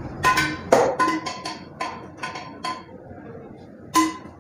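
A metal serving spoon clanking repeatedly against a large steel biryani pot, each knock ringing briefly at the same pitch. The knocks come fast and irregularly at first, pause, and then one loud clank comes about four seconds in.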